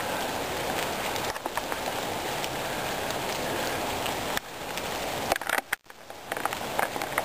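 Steady hiss of rain falling on the wet foliage and ground, dropping away briefly twice near the end.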